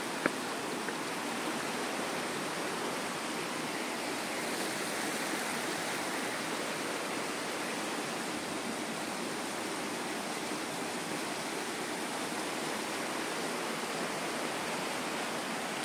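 A shallow rocky river flowing over stones, giving a steady, even rush of water.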